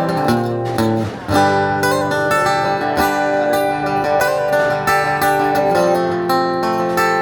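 Acoustic guitar strumming chords in the instrumental intro of a live rock song, with a brief break a little over a second in before the strumming carries on.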